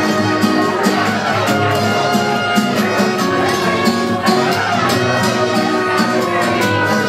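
Live dance band playing a song with a steady percussion beat.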